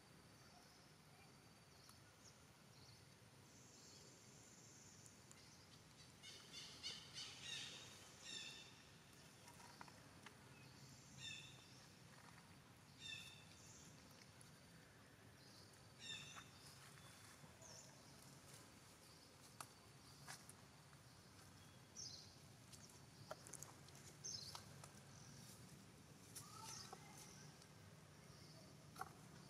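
Faint, short, high-pitched animal chirps over a quiet background: a quick cluster of them about a fifth of the way in, then single chirps every few seconds, with a few faint clicks.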